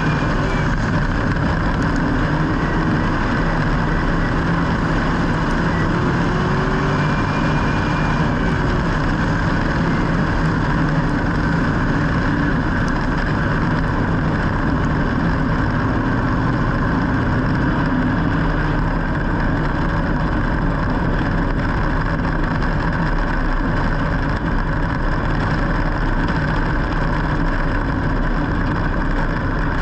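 Vehicle engines running steadily with a low rumble, unbroken throughout.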